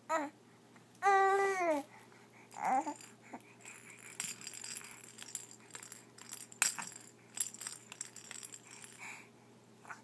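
A baby babbling: three short vocal sounds in the first three seconds, the longest a drawn-out one that falls in pitch at its end. After that come scattered light clicks and rattles of a plastic ball rattle being handled.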